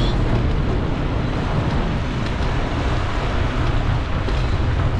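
Wind rushing over the microphone of a camera on a moving bicycle: a steady, loud rumbling rush, heaviest in the low end.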